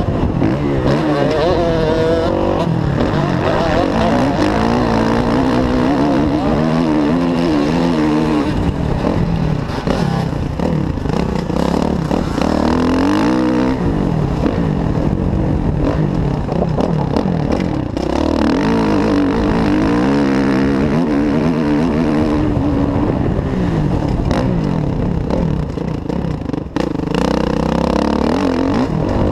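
Kawasaki KX450F's single-cylinder four-stroke engine revving hard while the bike is ridden along a dirt track, its pitch rising and falling over and over with the throttle, with a brief drop near the end.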